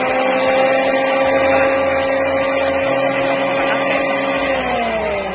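Ingco JAP15001 jointer-planer's electric motor and cutter head running at full speed with a steady whine. It runs because the guard is fitted and its safety switch is engaged. About four and a half seconds in it is switched off and the whine falls in pitch as it winds down.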